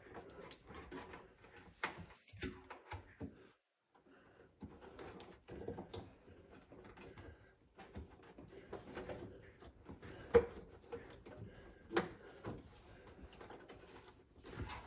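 Handling noises from work on a front-loading washing machine's rubber door seal: scattered clicks, light knocks and rubbing. Two sharper knocks come about ten and twelve seconds in.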